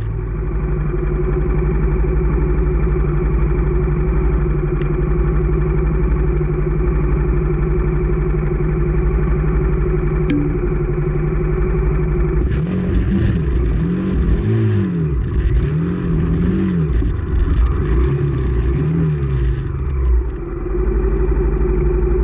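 Honda CRF250F's air-cooled single-cylinder four-stroke engine running steadily for about twelve seconds, then revving up and down several times with a hissing rush added, and settling back to a steady run near the end.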